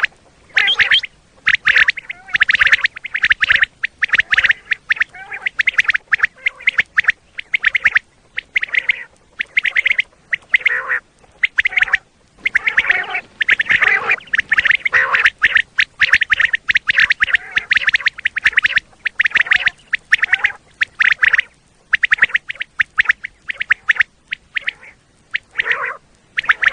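Common quail calling: rapid calls in dense clusters of a second or two, with short breaks between them.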